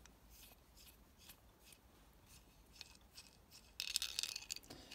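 Faint clicks of small steel parts being handled. About four seconds in comes a second of light metallic rasping as the collar nut of a Myford Super 7 cross-slide feed screw is spun along its thread.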